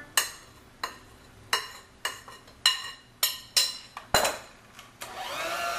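A spoon clinking and tapping against glass and ceramic mixing bowls about eight times as flour is scooped into cake batter, each clink ringing briefly. About five seconds in, an electric hand mixer switches on and runs steadily on its mix setting.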